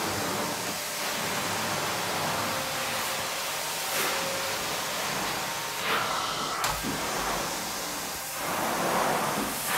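Carpet steam-cleaning extraction wand being drawn across carpet: a steady rushing hiss of vacuum suction and spray. It shifts in tone a few times, around each wand stroke.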